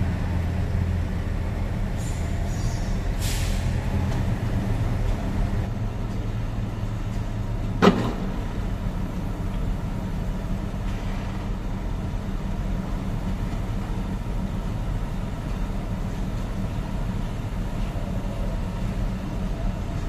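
Heavy diesel truck engine running steadily with a low hum. A single sharp clack comes about eight seconds in, after which the lowest part of the hum eases off.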